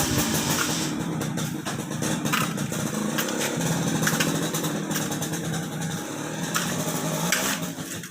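An engine running steadily, with frequent knocks and rattles over it.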